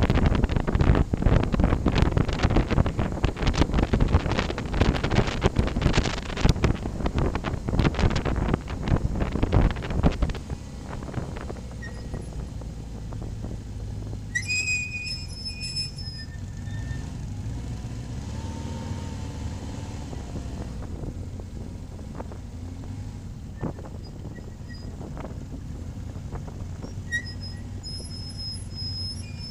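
Motorcycle ride with wind buffeting the microphone. About ten seconds in the wind drops away and the motorcycle engine runs low and steady at slow speed. Two brief high squeals come midway and near the end.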